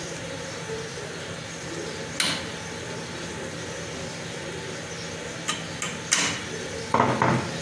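Metal clicks and clinks of an Allen key and hands working on an embroidery machine's back shaft and bearing collar. There is one sharp click about two seconds in, three more close together a little past halfway, then two duller knocks near the end, over a steady background hum.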